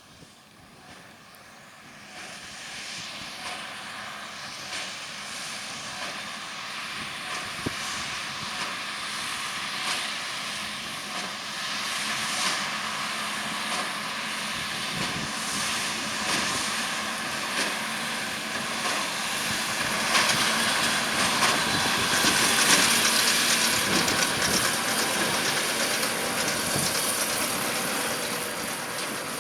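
John Deere 6195R tractor pulling a Massey Ferguson 2170 large square baler through straw. The engine and baler noise grow steadily louder as the outfit approaches, are loudest about two-thirds of the way through, then ease off a little near the end, with frequent short knocks over the steady running.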